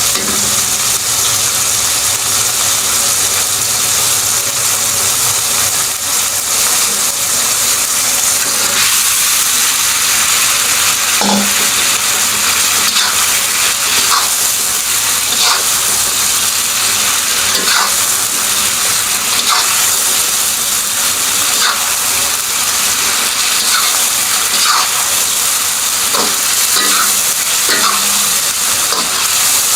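Chicken sizzling steadily in a hot pan for black pepper chicken, with a spatula scraping and knocking against the pan every second or two as it is stirred, starting about a third of the way in.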